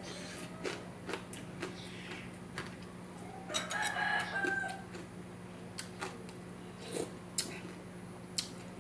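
A rooster crows once, a pitched call lasting about a second a little before halfway through. Scattered short clicks and a steady low hum run beneath it.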